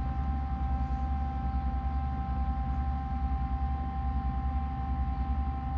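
Steady low machine hum with a faint steady whine above it; nothing else happens.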